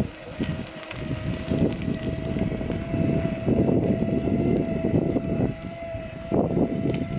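Steady whine of a Segway PT's electric drive, one held tone with fainter overtones above it, under gusty wind rumble on the microphone.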